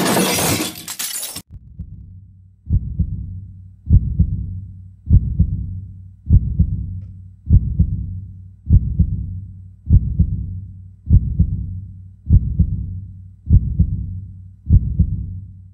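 A crash with shattering glass cuts off abruptly about a second in. It is followed by a slow heartbeat sound effect: eleven low double thumps, about one every 1.2 seconds.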